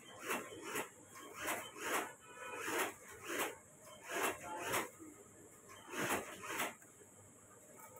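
Shirt-collar cloth rubbed and creased by hand against a tabletop, in a run of short rustling strokes about two a second that stop near the end.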